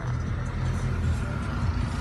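Car engine and road noise, a low steady rumble.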